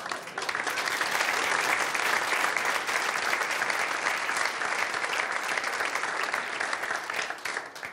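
Audience applauding: a dense, steady patter of many hands clapping that thins out and dies away near the end.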